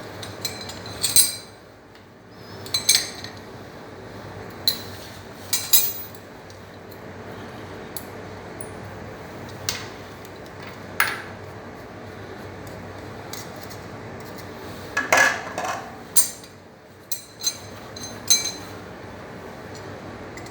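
Hard parts of a glue gun clinking and knocking as they are handled and set down: about a dozen irregular sharp taps, with a short cluster of them about fifteen seconds in.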